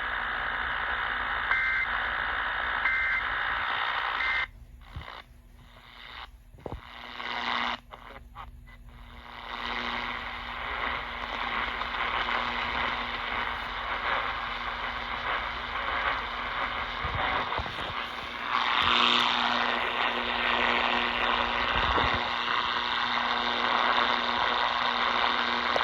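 Three short two-tone EAS end-of-message data bursts, about 1.3 seconds apart, sound over a noisy radio signal full of static hiss. From about five to nine seconds in, the hiss breaks up and drops out in stretches, then comes back steady.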